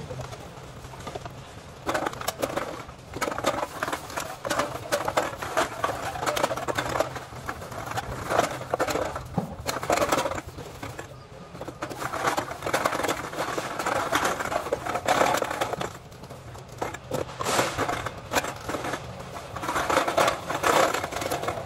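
Plastic garbage bags rustling and crinkling, with recyclables clattering as they are tipped and sorted into plastic bins, in irregular spells with many sharp clicks.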